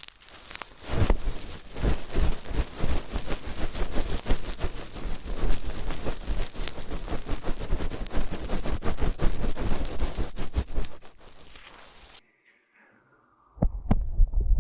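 Dense crackling and rubbing as hands squeeze and rub the ears of a binaural ASMR microphone, close and loud. It cuts off suddenly about twelve seconds in, and low thuds start again near the end.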